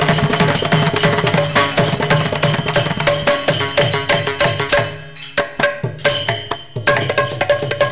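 Devotional namavali music: a harmonium holding steady tones under a steady beat of percussion and hand clapping. About five seconds in the beat thins out to sparser strikes as the song winds down.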